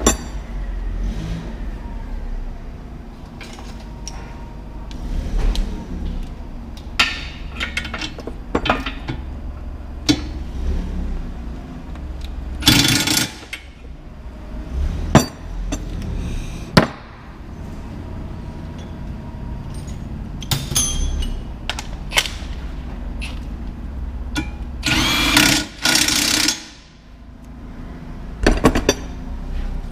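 Mechanic's tools clicking and knocking against metal during front wheel bearing work, with two roughly one-second bursts of a power tool, one about halfway through and one near the end, over a steady low rumble.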